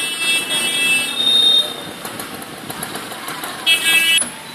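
A vehicle horn honks twice over a steady street hubbub: a longer honk of about a second and a half at the start, and a short one of about half a second near the end.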